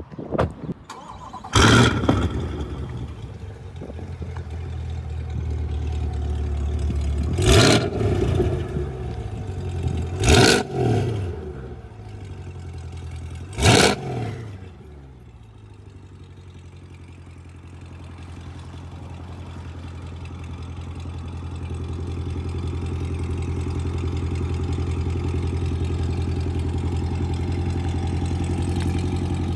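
2026 Corvette Stingray's 6.2-litre V8 through Atlantic Built cat bypass pipes with the exhaust in track mode: a loud burst about two seconds in, then running at idle, three sharp throttle blips about three seconds apart, and a steady low exhaust note that grows gradually louder toward the end.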